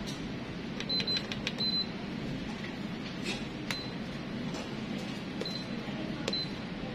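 Short high beeps from the control panel of a Canon imageRUNNER Advance 4235 copier as its touchscreen and keypad buttons are pressed, with sharp button clicks. A few beeps come about one to two seconds in and two more near the end, over a steady low hum.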